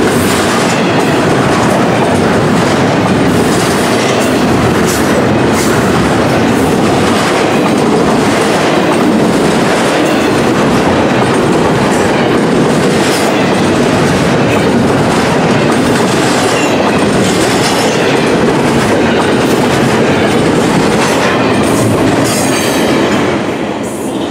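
Freight train rolling past, its steel wheels clicking over rail joints in a steady rumble and rattle. The sound starts to fade near the end.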